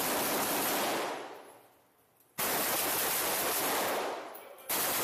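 Bursts of automatic gunfire. The first burst is already going and dies away by about two seconds in, a new one starts abruptly just under halfway through, and another starts near the end.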